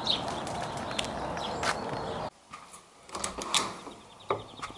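Steady rustle of someone walking with the camera, cutting off suddenly about halfway through. Then a few sharp clicks and a knock as a door is opened.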